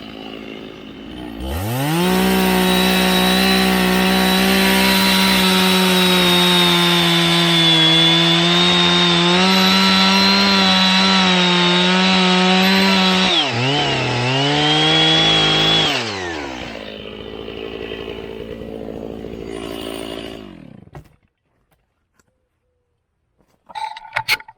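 Two-stroke chainsaw cutting through an oak log: it idles, revs up to full speed and runs steadily in the cut, its pitch dipping briefly once under load, then drops back to idle and is switched off.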